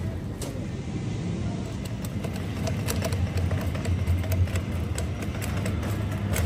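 Shopping cart rolling over a tiled supermarket floor: a steady low rumble from the wheels with small rattles and clicks from the wire basket, loudest about two thirds of the way through.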